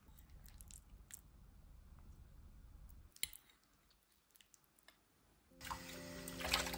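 Faint eating sounds: a metal fork clicking and scraping in a ceramic bowl, with one sharper clink about three seconds in. Near the end, soft music comes in together with water running from a tap.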